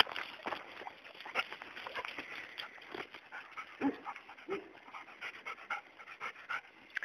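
A dog panting in short, irregular breaths, with a couple of brief low whimpers about four seconds in.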